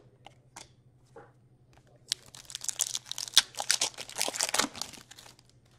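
A foil trading-card pack being torn open and its wrapper crinkled. The crackling starts about two seconds in and lasts about three seconds, after a few faint ticks of cards being handled.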